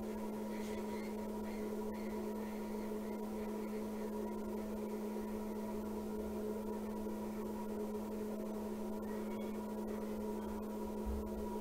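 Hot-air rework station blowing steadily, a constant hum, while the newly soldered iPhone 6S display connector is heated so it settles into place.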